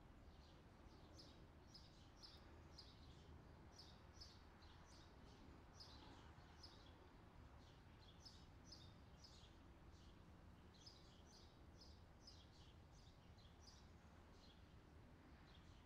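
Near silence: a faint low hum with soft, high chirps recurring irregularly, often in pairs, a couple each second.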